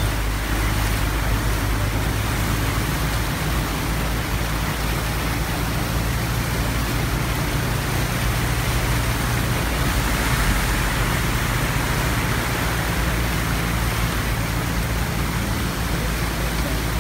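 A vehicle's engine running steadily as it drives through floodwater, over a constant rush of churned water.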